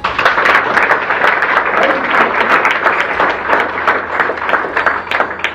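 Audience applause: dense clapping that breaks out at once and dies away near the end.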